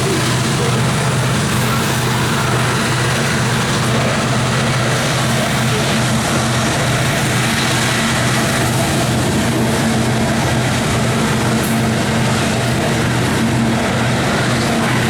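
Freight train rolling past: a steady, loud rumble of the cars on the rails with a constant low drone underneath.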